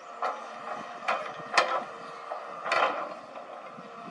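Caterpillar hydraulic excavator running steadily under load while digging dry earth, with about four sharp metallic clanks and scrapes as the bucket and boom work, the loudest about a second and a half in.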